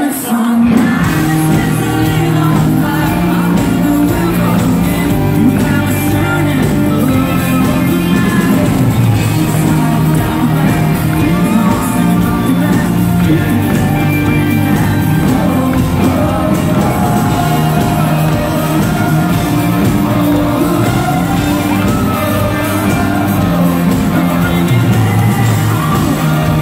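Live rock-country band music: a male lead vocalist singing over electric guitar and a full band, heard from the audience at a loud concert.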